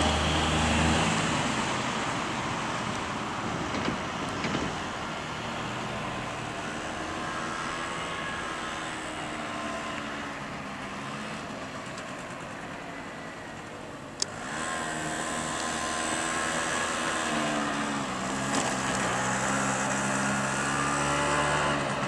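Road vehicles driving past, their engines rising and falling in pitch, with a sharp click about fourteen seconds in.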